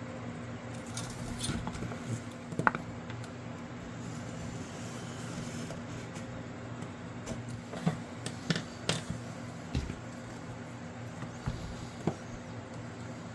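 Light clicks and taps of tools and leather being handled on a workbench while leather pieces are cut out, over a steady low hum.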